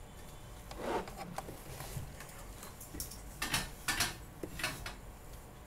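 Faint scattered clicks and short rustles, about half a dozen over a few seconds, over a low hiss.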